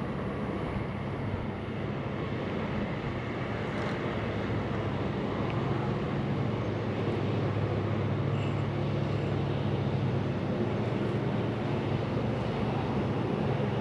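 Steady low rumble with a constant hum and no distinct events.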